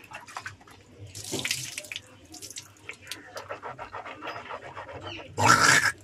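A woman hawking phlegm up from the back of her throat and spitting. A harsh raspy hawk comes about a second in, with small wet mouth clicks after it. The loudest hawk comes near the end, just as the spit leaves her mouth.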